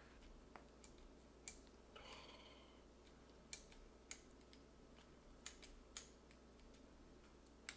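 Mostly quiet, with about half a dozen faint, sharp clicks and taps at uneven intervals and a soft brief rustle about two seconds in: a meat injector syringe being pushed into a raw beef roast and handled with gloved hands on a plastic tray.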